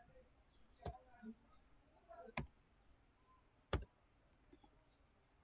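Three single keystrokes on a computer keyboard, about a second and a half apart, in near silence.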